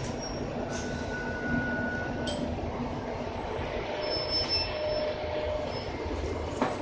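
Cabin noise of a moving RTS city bus: steady running and road noise with rattles, a few thin squealing tones that come and go, and a sharp click near the end.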